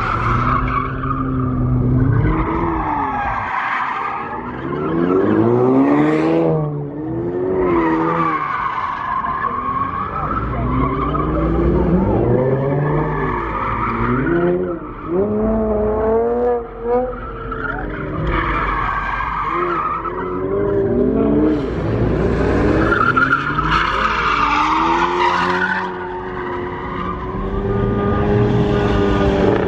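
Car engines revving hard, rising and falling over and over, with tyres squealing as the cars spin donuts and burnouts.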